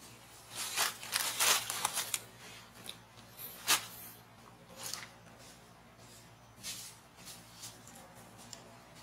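Dry leaves and a dry twig rustling and crackling in short bursts as a baby monkey handles and mouths the stick: a dense cluster about a second in and one sharp crackle near the four-second mark, with fainter rustles after.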